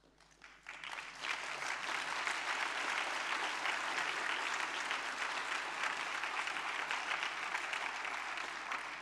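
Large audience applauding: the clapping swells in within the first second, holds steady, and begins to die away near the end.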